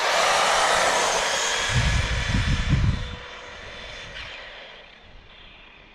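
Two brushless RC cars, an Arrma Talion and a Traxxas Slash 4x4, launching together at full throttle: a sudden loud high whine of the electric motors with tyre hiss, which fades over a few seconds as they race away.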